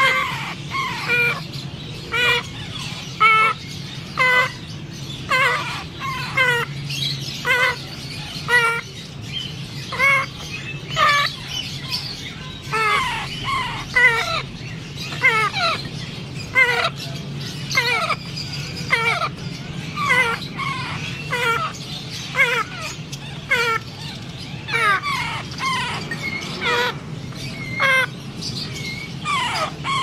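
African grey parrot chicks giving repeated food-begging calls during hand-feeding. Each call is short and sweeps in pitch, and they come about once a second.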